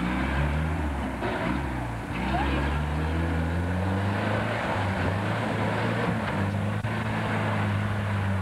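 UAZ-469 off-roader's engine running under load as it drives slowly through mud, the engine note rising a little near the start and then holding steady.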